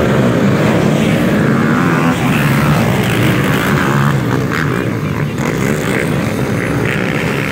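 Many ATV engines revving together as a field of racing quads launches off the start line and accelerates away.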